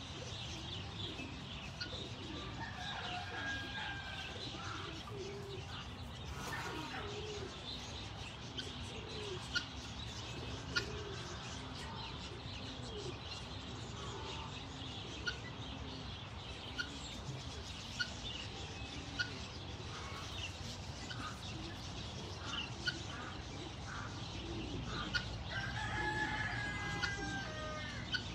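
A mix of poultry calls: chickens clucking with scattered chirps and short calls throughout, a longer call near the end, and a few sharp clicks in between.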